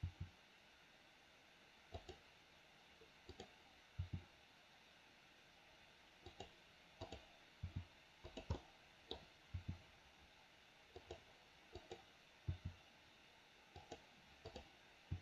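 Computer mouse buttons and keyboard keys clicking: short, sharp clicks, often in quick pairs, coming irregularly about once or twice a second, with near silence between them.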